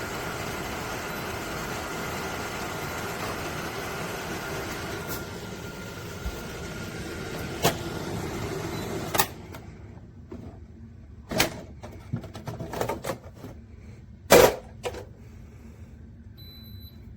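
Kesnos 80-pint dehumidifier running, a steady fan hum with a faint whine, which cuts off about nine seconds in. Then several scattered knocks and clicks, and two short high beeps near the end.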